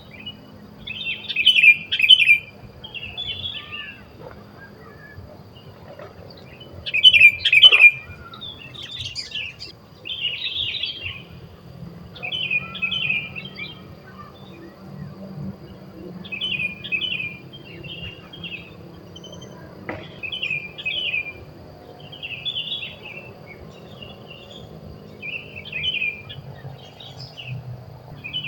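Sooty-headed bulbuls calling: short chirping phrases repeated every second or two, the loudest near the start and again about seven seconds in.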